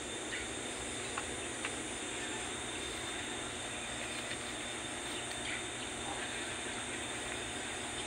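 Steady outdoor background of insects droning, with a thin, even high note over a hiss, and a few faint ticks about a second in.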